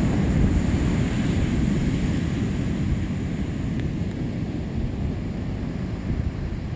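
Wind buffeting the microphone in a steady low rumble, over the hiss of surf breaking on the beach.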